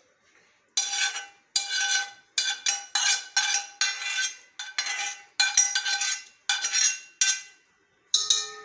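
A metal spoon scraping stewed onion and tomato out of a frying pan into a kazan: about a dozen quick scrapes, each with a ringing metallic tone, then a knock near the end that rings on.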